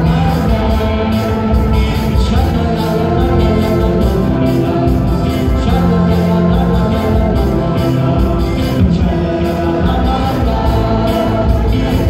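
Live band music played through a PA: a steady drumbeat under electric guitar, with a male singer.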